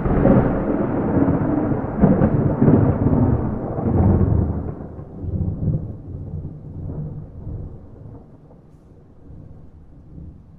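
Thunder rolling, with no rain: a loud crackling rumble that surges about two and four seconds in, then dies away into a low, fading rumble.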